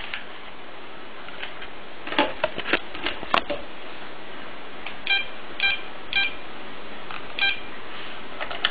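A few taps and clicks, then four short electronic telephone keypad beeps, spaced about half a second to a second apart, as a phone number is dialed.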